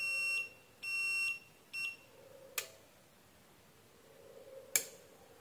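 XM-18 incubator controller's covered alarm buzzer beeping at a high pitch, three beeps about a second apart with the last one short, then stopping; the alarm sounds while the temperature is off the set point. Two sharp clicks follow later.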